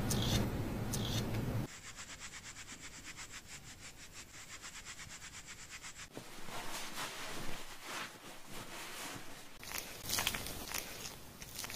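Close-up rubbing of hands and a plastic tool on skin and wet hair during a head and neck massage. It starts as louder hand rubbing, then becomes a quicker, quieter run of rapid, even strokes as a plastic massage comb scrapes along the neck, and from about ten seconds in turns to fingers working shampoo lather through wet hair, with soft squishing and small crackles.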